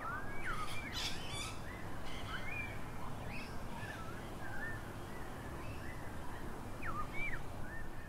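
Birds calling: a run of short whistled notes that rise and fall, with a couple of brief harsh, scratchy calls about a second in.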